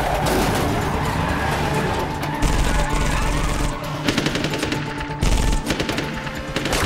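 Rapid bursts of automatic gunfire, with an action film score underneath.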